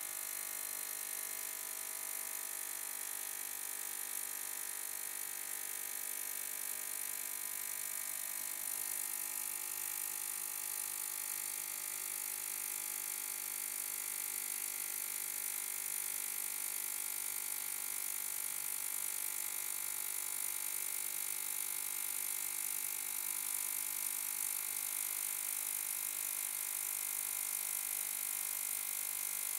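GT Sonic 750ml ultrasonic cleaner running a cleaning cycle: a steady buzz made of many high tones as the transducer vibrates the water bath.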